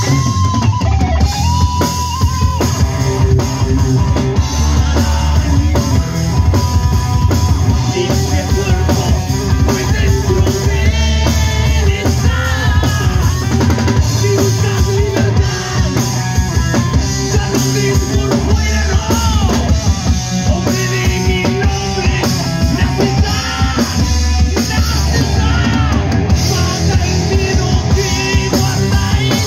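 Live rock band playing loud: electric guitar, electric bass and drum kit, with a male singer's vocals over them.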